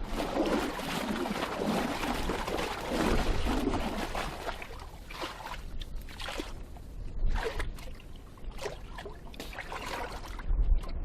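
Water sloshing and trickling, with a run of short, sharp splashing or knocking sounds in the second half.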